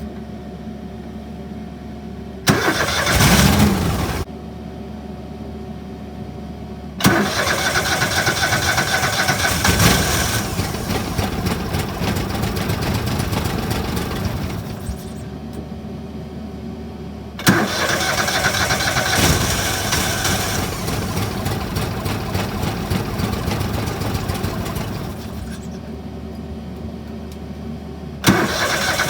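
Argo ATV engine being started again and again: a short burst of cranking, then the engine catching and running unevenly for several seconds at a time before dropping away, and starting up again near the end. It won't stay running; the owner traces this to a bad fuse that cuts power to the fuel solenoid.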